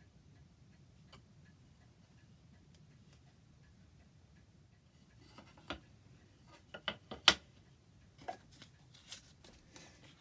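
A clock ticking faintly and steadily. About halfway through, a run of sharp knocks and clicks starts, the loudest about three-quarters of the way in.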